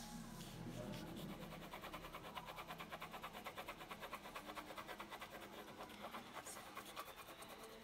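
Wax crayon scratching back and forth on paper in quick, even strokes, about five a second, as a picture is coloured in.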